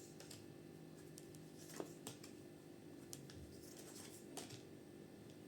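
Near silence with a few faint soft taps and rustles of tarot cards being handled and laid down.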